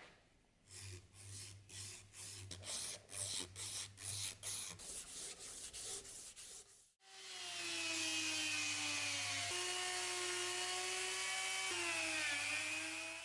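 A strip of fine sandpaper pulled back and forth around a wooden knife handle, a quick run of rubbing strokes. About seven seconds in, a small handheld rotary tool with a polishing bit starts up with a steady high whine, its pitch dipping slightly a couple of times as it works the metal ferrule.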